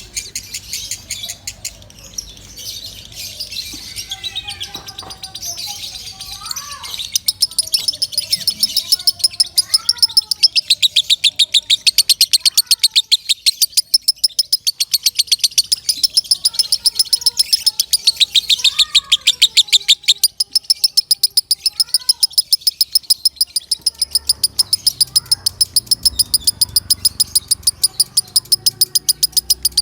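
Lovebird singing loudly. A few scattered calls give way, about seven seconds in, to a long unbroken run of high, rapid chirps, about four a second, held steadily on.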